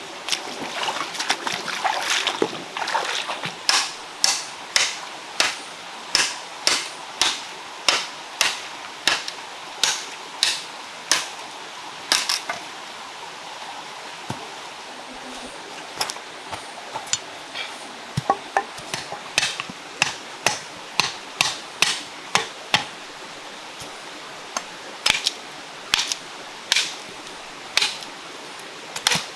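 A regular run of sharp knocks, about two a second with a couple of short pauses, over the steady rush of a stream. The first few seconds are denser and more splashy.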